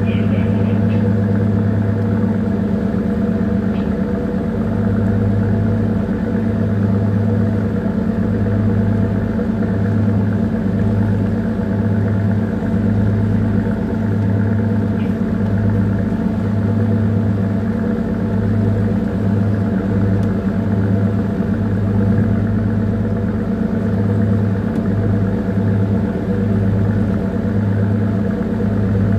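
A small tanker's engine running steadily underway: a loud, deep drone with a low hum that throbs in and out every second or so.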